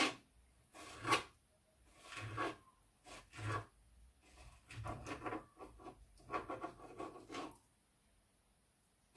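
Kitchen knife cutting mango pieces on a plastic chopping board: short scraping cuts, one about every second at first, then a quicker run of cuts, stopping a little before the end.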